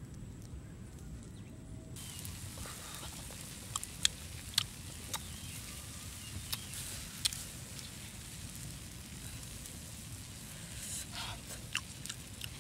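Wood fire crackling with scattered sharp pops, over a steady faint sizzle of egg and fish frying on a hot stone slab.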